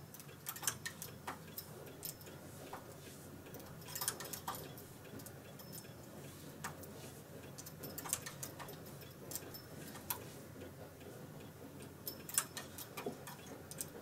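Faint, irregular light clicks and ticks of a metal hand transfer tool and latch needles on a Brother KH585 knitting machine's needle bed as stitches are lifted and moved across by hand.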